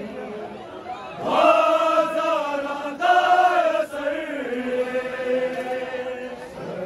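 Crowd of Muharram mourners chanting together in long, drawn-out calls over the rumble of the packed crowd. The chant swells about a second in, peaks again around the middle, then settles into a lower held note that fades.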